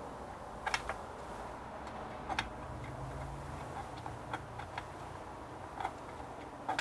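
Irregular light clicks and taps of small metal parts and tools being handled while a CPU cooler mounting bracket is taken off, over a low steady hum.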